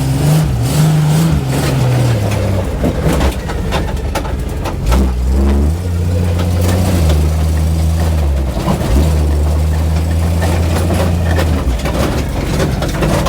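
1980 Jeep Cherokee Chief's engine running under load as the truck drives, revving up twice and holding, with repeated clanging and banging from the back of the truck. The owner suspects a dragging brake.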